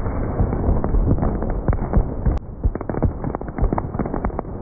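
Fireworks and firecrackers going off: many bangs and pops in rapid, irregular succession over a steady low rumble, thinning briefly about halfway through.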